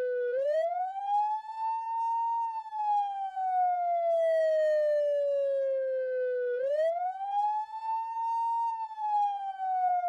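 Whelen WS-310 electronic police siren in a slow wail. The tone climbs over about two seconds, then sinks slowly for about four seconds, and climbs again about six and a half seconds in.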